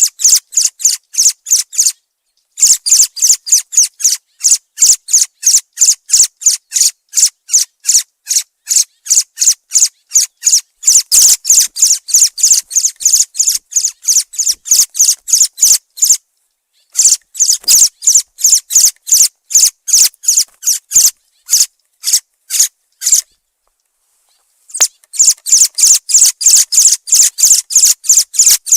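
Thrush calling in a rapid series of short, sharp, high notes, about three a second, with brief breaks of silence.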